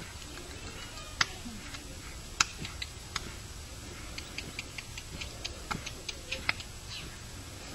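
A quarter horse being led at a walk on a dirt arena, its hoofbeats and tack giving light, sharp clicks: a few scattered ones, then a quicker run of about three or four a second from about four seconds in.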